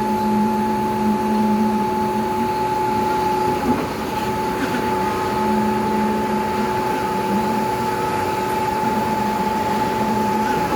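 Concrete pump truck running steadily at work, its engine and hydraulic pump making a continuous whine over a steady mechanical drone.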